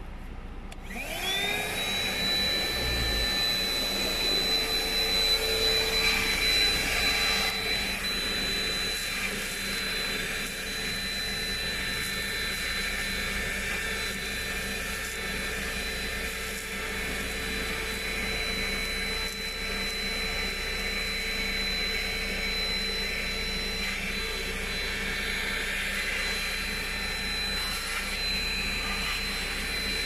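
A 12 V wet/dry car vacuum cleaner is switched on about a second in. Its motor's pitch rises quickly to a steady high whine, and it keeps running as its crevice nozzle is worked over a dusty rubber floor mat.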